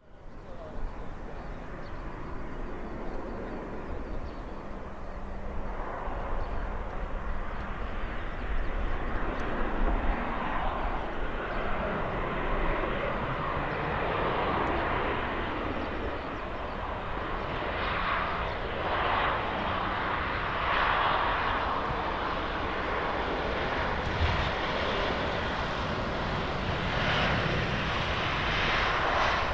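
Boeing 737-800 airliner's CFM56-7B jet engines running as the aircraft rolls along the runway and taxis past: a broad rush of jet noise that builds over the first ten seconds and then holds, rising and falling a little.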